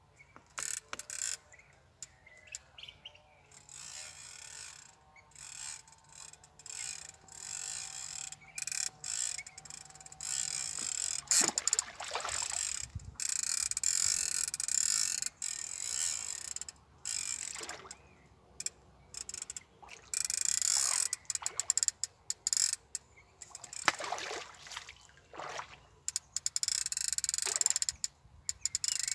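Centrepin reel's ratchet check clicking in irregular bursts as a hooked fish pulls line, mixed with water splashing as the fish fights near the surface.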